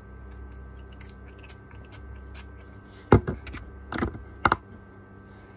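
Facial mist spray bottle pumped several times in quick succession, three sharp spritzes with lighter clicks between them, starting a little past halfway.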